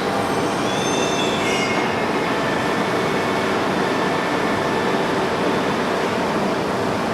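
WMW Niles DP1 facing lathe running: a steady mechanical din with faint high, wavering squealing tones in the first couple of seconds.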